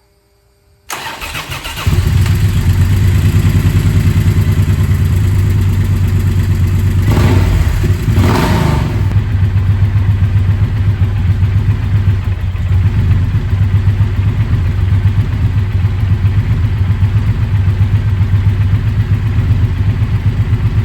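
The 1700 cc parallel-twin engine of a 2014 Triumph Thunderbird Commander is cranked by its starter, catches about two seconds in, and runs at a steady idle on freshly changed oil. It is revved twice around seven to nine seconds in.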